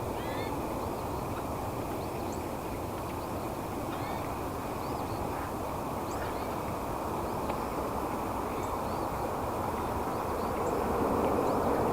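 Short high bird chirps recurring every second or two over a steady rushing outdoor noise.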